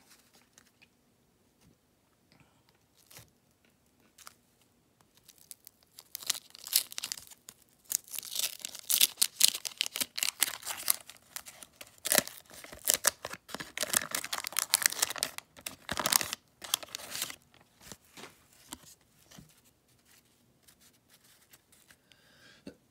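A 1989 Donruss wax-paper card pack being torn open and crinkled by hand. After a few quiet seconds comes a run of crackly tearing and crumpling lasting about ten seconds, then only faint rustles.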